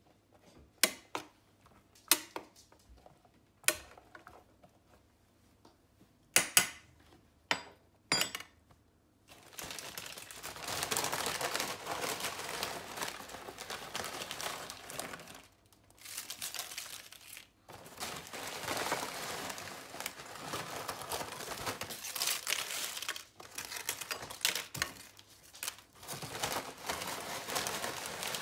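A few separate sharp clicks and taps over the metal baking tray as black beans are spread on it, then, from about nine seconds in, the continuous crinkling of a plastic tortilla chip bag as chips are pulled out, broken by a couple of short pauses.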